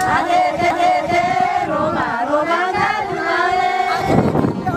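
Women singing a song together in long, held notes that glide between pitches, with a short burst of noise near the end.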